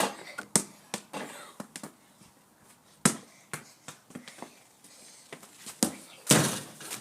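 A football being kicked and bouncing: a few sharp separate knocks, the loudest about three seconds in, and a short rush of noise near the end.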